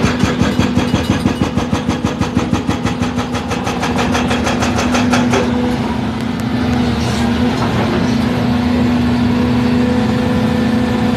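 Hydraulic breaker on a Volvo EC210B excavator pounding the road surface in a rapid, even run of blows that stops about five seconds in. The excavator's diesel engine runs steadily underneath and carries on after the hammering stops.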